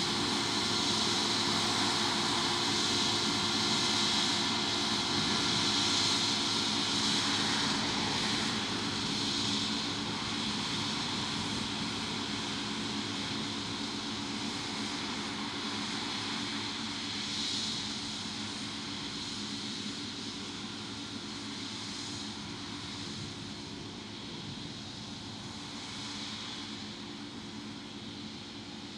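Combine harvester running steadily with a droning engine and a broad hiss. It grows gradually quieter after about eight seconds.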